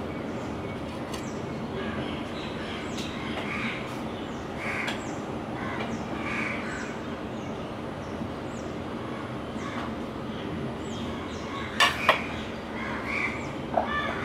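Crows cawing again and again over a steady background hiss, with a few sharp knocks near the end.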